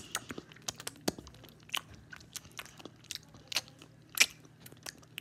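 Someone chewing a Rice Krispies treat with loud, open-mouthed smacking: irregular sharp mouth clicks, a few a second.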